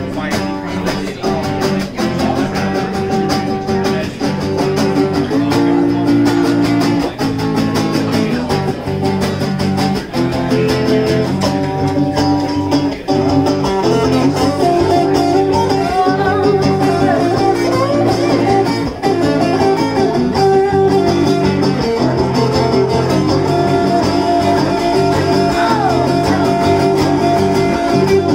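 Acoustic guitar playing an instrumental break: steady chords strummed in an even rhythm, with no singing.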